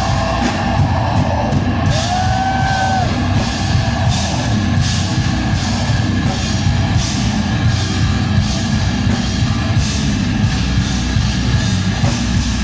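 Heavy metal band playing live: distorted guitars and bass over pounding drums and cymbals.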